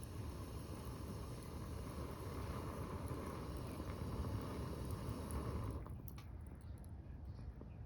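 Wood fire burning in a small secondary-combustion wood stove: a steady low rumble of flame with a few faint crackles. The higher hiss falls away suddenly about six seconds in.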